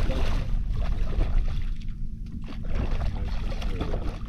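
A hooked fish thrashing and splashing at the water's surface beside the boat as it is brought in to be landed, with the splashing strongest in the first second or so and then fading. A steady low rumble of wind on the microphone runs under it.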